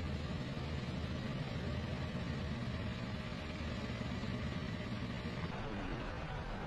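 Vehicle engine idling steadily with a low hum.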